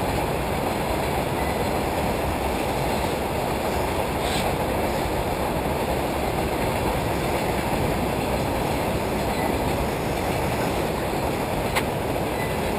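Steady wind buffeting on the microphone: a dense, even low rumble with no engine or motor tone in it, and a faint click or two.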